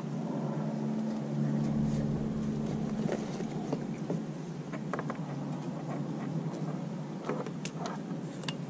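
A steady low motor hum, strongest in the first few seconds, with scattered light clicks and rustles from fishing line and a lure being handled and pulled free.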